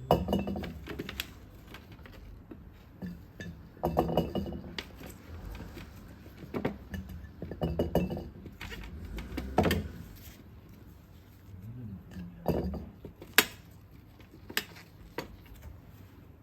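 Kitchen handling sounds: scattered light knocks and clinks of dishes or utensils at an irregular pace, the sharpest one a little past the middle.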